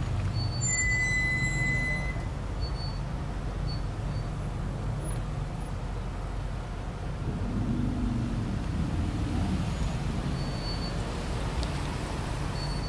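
Road traffic: cars idling and rolling slowly past, a steady low engine rumble, with a brief high squeal about a second in.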